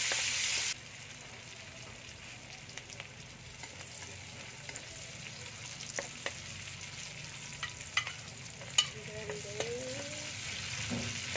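Chopped aromatics sizzling in hot oil in a wok, with a metal spatula scraping and clicking against the pan as it stirs. The sizzle drops sharply less than a second in, then slowly grows louder. The sharpest spatula clicks come about 6, 8 and 9 seconds in.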